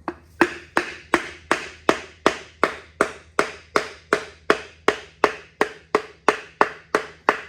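Steady series of sharp hammer taps, about two and a half a second, each ringing briefly: a piston and connecting rod being driven out of an LS1 V8's cylinder bore.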